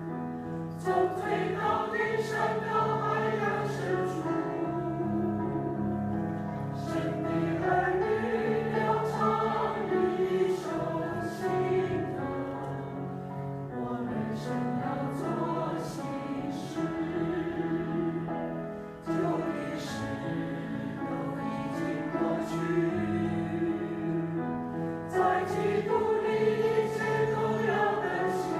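Choir singing a hymn-like piece with instrumental accompaniment, its chords changing every few seconds.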